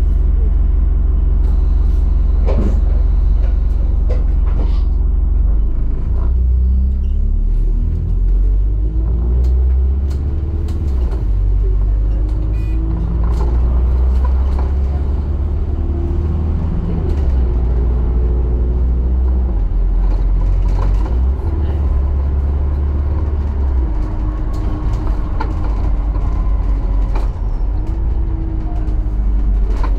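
ADL Enviro400 double-decker bus engine heard from inside the bus as it drives, with a heavy low rumble. The engine note rises and drops back several times as it accelerates and changes gear, with scattered rattles and clicks from the bodywork.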